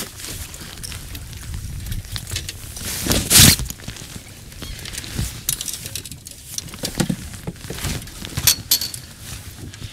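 A landing net being hauled up from the water at the side of a fishing boat, with a loud rush of water about three seconds in, followed by scattered clicks, knocks and clinks of gear against the boat, over a steady low rumble of wind and water.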